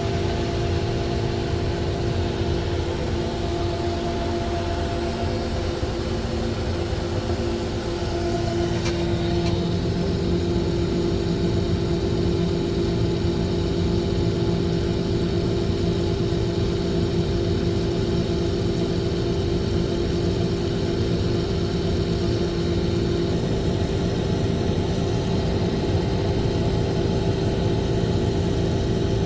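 Combine harvester running steadily, a constant mechanical drone with a steady hum. About 9 seconds in there is a short click, after which the pitch of the hum shifts and it gets a little louder.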